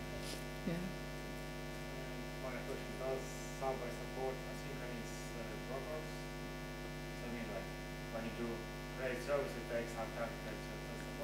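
Steady electrical mains hum from the microphone and sound system, with a faint, distant voice speaking off-microphone, like an audience member asking a question.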